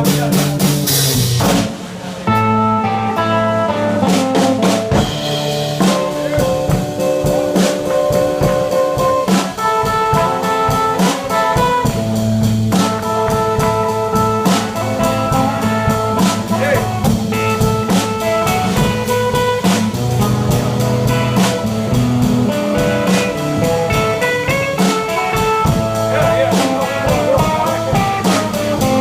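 Live blues band playing an instrumental break: guitar and drum kit, with held lead notes over a steady slow beat.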